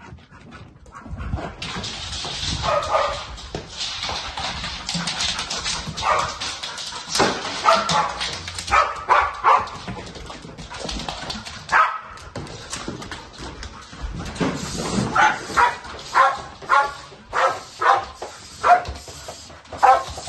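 A protection-trained dog barking repeatedly at a person it has found on a house search, the barks coming in quick runs of two or three a second and thickest in the last few seconds. This is a hold-and-bark, keeping the found person in place and alerting the owner. For the first several seconds a steady rushing noise runs under it.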